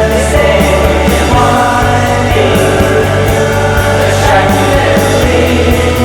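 Indie rock band recording playing loud and steady: drums with regular cymbal strokes, a sustained bass line, and held guitar and voice tones with no clear words.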